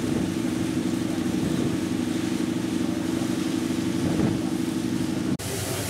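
Steady drone of a riverboat's engine, heard on deck. Near the end it cuts off abruptly and gives way to an even hiss.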